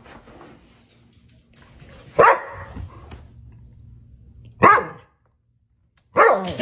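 A dog barking: single short barks about two and a half seconds apart, with a third bark near the end after a brief gap of silence.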